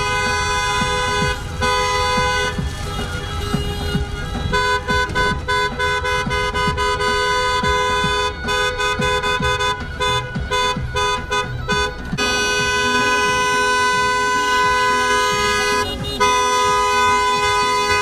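Car horns honking together in a celebratory wedding convoy: long held blasts, then a stretch of short rapid toots, then long blasts again, over the low rumble of traffic.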